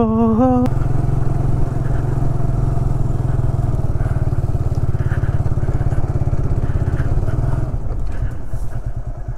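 Motorcycle engine running steadily while being ridden on a rough forest trail. About eight seconds in, it drops to a quieter, lower note in which the separate firing pulses are plainer.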